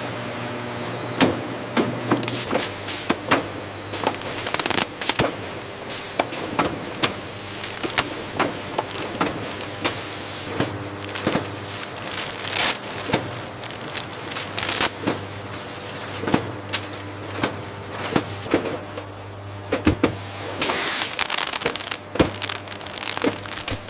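Chip bag-forming and sealing machine running: a steady low hum with frequent sharp, irregular clicks and crackles.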